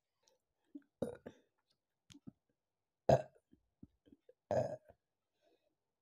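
A woman burping after drinking a fizzy apple soda: three burps, one about a second in, a louder short one about three seconds in, and a longer one a second and a half later. Faint small mouth clicks fall between them.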